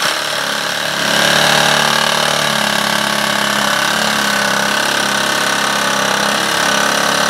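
Milwaukee M12 Fuel Hackzall brushless reciprocating saw with a Diablo carbide-tipped pruning blade, cutting into a green rhododendron trunk. It starts abruptly and runs steadily, held still in the cut without raking, so the wood chips are not being cleared from the blade.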